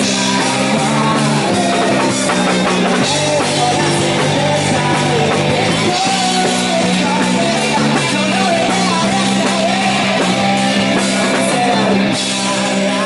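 Live indie-rock band playing, electric guitar to the fore with a singing voice over it.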